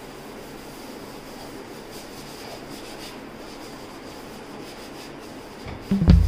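Steady scrubbing of a scrub pad over a stainless steel stove top. Loud drum-led music cuts in at the very end.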